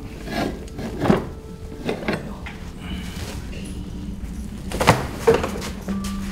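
Scattered knocks and thumps of a large costumed float figure being lifted and fitted into place by hand, the two sharpest about five seconds in. Music plays faintly in the background.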